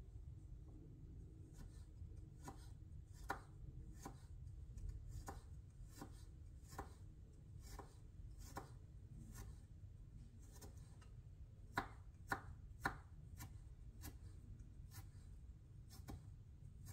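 Kitchen knife mincing a garlic clove on a wooden cutting board: light, even taps about twice a second, with three louder knocks close together a little past the middle.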